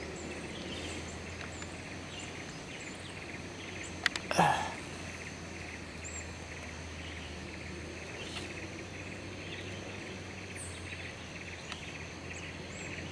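Steady outdoor background of insects buzzing, with wind noise. About four seconds in come two sharp clicks and a brief loud noise.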